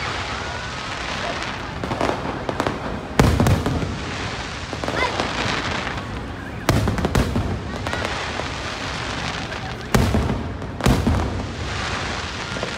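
Aerial fireworks display: shells burst with loud bangs about three, seven, ten and eleven seconds in, the last two about a second apart, over continuous crackling.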